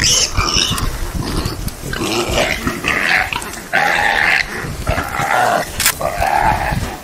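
Warthog squealing in distress while a leopard bites and pins it down: a series of harsh cries, each under a second long, starting about two seconds in, with a low rumble of growling and scuffling beneath.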